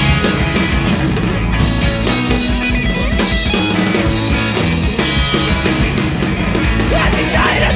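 Loud full-band rock music: distorted electric guitars and a drum kit playing an instrumental passage, with a voice coming in near the end.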